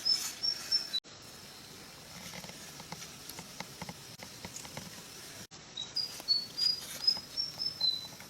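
Runs of short, high chirping calls that step up and down in pitch, from a small wild animal. They come right at the start and again for the last couple of seconds. In between, faint scattered ticks and clicks sit over a steady low hiss of outdoor background.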